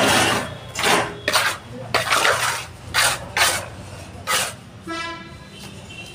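Mason's steel trowel scooping cement mortar from a metal pan and spreading it over bricks: a run of about seven short scrapes and clinks of metal on metal and on wet mortar.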